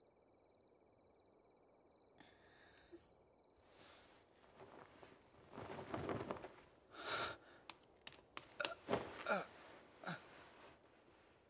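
Faint steady insect chirring, then several seconds of soft cloth rustling with a few sharp clicks and breathy sighs.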